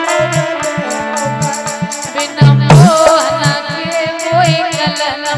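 Bhajan folk music through loudspeakers: a steady hand-drum beat with small jingling percussion over held steady tones, and a singing voice coming in about halfway.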